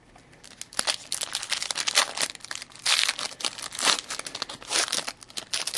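Foil trading-card pack wrappers crinkling and rustling in irregular bursts as packs are torn open and handled, starting about half a second in.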